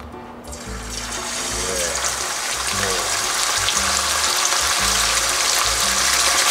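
Steak slid into oil at 200 °C in a frying pan, the hot oil sizzling and bubbling hard around the meat as it deep-fries. The sizzle starts about half a second in and grows louder. Background music plays underneath.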